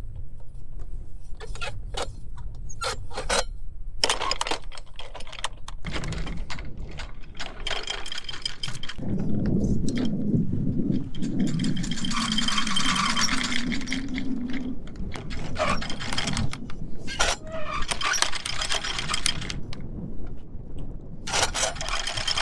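Anchor chain paying out in bursts over the bow roller and the manual windlass gypsy, rattling and clanking metal on metal, over a steady low rumble.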